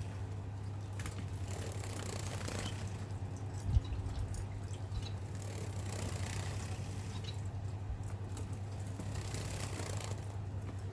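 Society finches splashing and fluttering in a water bath, with a few faint short chirps. A single thump comes about four seconds in, over a steady low hum.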